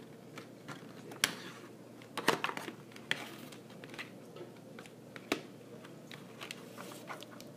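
Irregular sharp clicks and clacks of hands working at a doll's plastic packaging and accessories, about half a dozen, the loudest a little over two seconds in.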